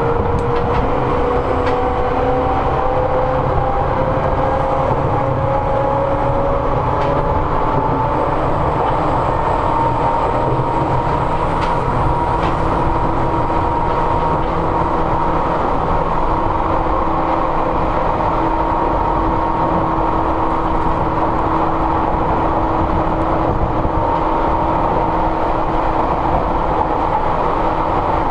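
Seibu 101 series electric train running, heard aboard motor car MoHa 247 with its resistance-controlled traction motors. A whine from the motors and gears rises in pitch over the first ten seconds or so as the train gathers speed, then holds steady over a constant rumble of wheels and running gear.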